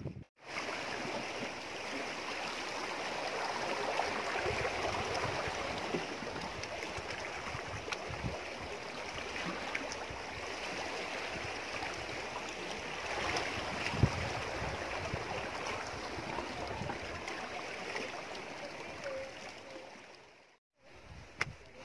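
Seawater washing and surging among shoreline boulders: a steady rushing hiss that swells a little now and then, with a single sharp knock about two-thirds of the way in. It cuts off suddenly near the end.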